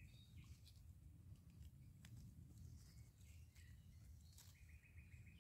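Near silence in a forest: faint bird chirps, with a short run of quick notes near the end, and soft clicks and rustles as a knife cuts chanterelle mushrooms from the leaf litter.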